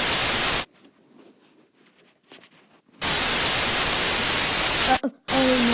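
Radio static: an even, loud hiss that cuts in and out, with faint crackling during the gaps. It is the sound of a lost radio link with the aircraft.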